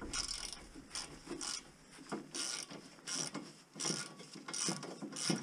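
Ratchet spanner clicking in short, irregular runs as it is worked back and forth on a bolt of the bull bar mount.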